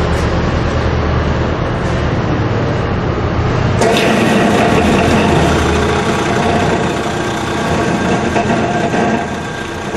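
Robot Coupe Blixer 60 chopper/mixer running below high speed, its twin bottom blades chopping heads of lettuce in the stainless steel bowl: a steady motor hum with churning. About four seconds in the sound changes abruptly, with a click, to a brighter, noisier churning.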